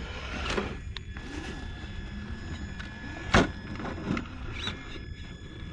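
Traxxas TRX4 RC crawler's electric motor and drivetrain whining as it climbs a rock pile, with a few sharp knocks of tyres and chassis against the rocks, the loudest about three and a half seconds in.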